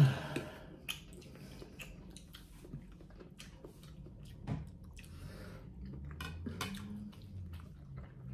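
Eating at the table: metal spoons clinking and scraping in ceramic soup bowls of pho, with chewing, as scattered small clicks. A single short loud sound comes right at the start.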